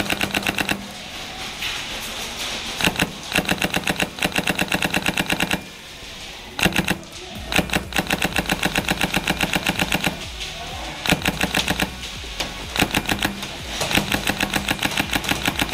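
Airsoft rifles firing on full auto in repeated bursts of rapid, evenly spaced shots. Some bursts are short and some run for two seconds or more, with short pauses between them.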